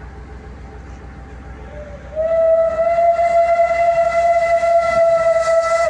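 Steam locomotive whistle blowing one long, steady note about two seconds in, with a hiss of steam over it, cut off near the end.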